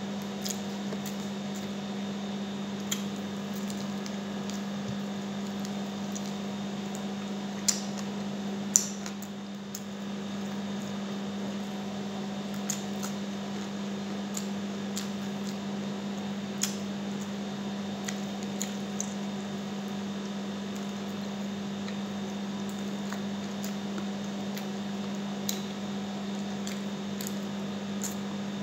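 A person eating chicken and rice by hand: chewing and soft squishing mouth sounds, with a few sharp clicks, over a steady electrical hum.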